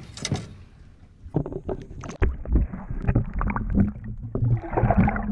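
Water splashing and sloshing, with short knocks, as a large striped bass is let go over the side of a small boat. From about two seconds in the sound turns muffled, as if heard from under the water.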